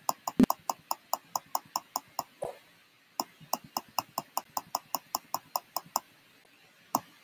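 Computer mouse clicking evenly, about four or five clicks a second, in two runs with a short pause between them and a single click near the end, as a number field is stepped up one click at a time. A low thump comes about half a second in.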